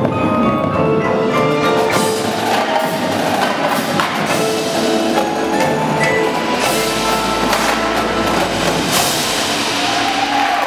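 Indoor percussion ensemble playing: mallet keyboards ringing held notes over quick clicks and drum hits. A deep low tone sounds from about six and a half to nine seconds in.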